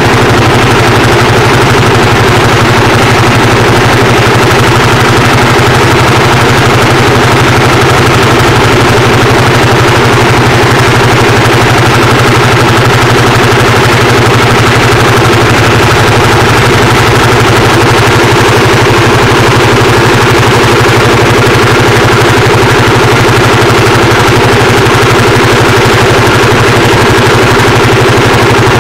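Lanz Bulldog 55 PS tractor's single-cylinder two-stroke hot-bulb engine running loud and steady as the tractor pulls up a 13% hill, heard from the driver's seat close to the engine.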